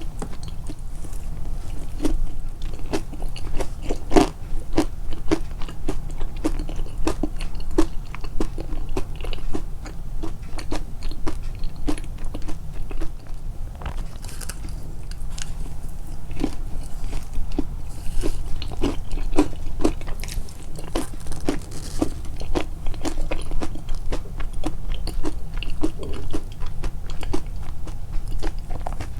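Close-miked chewing of crunchy food, a steady run of crisp bites and crunches about two a second, with a low steady hum underneath.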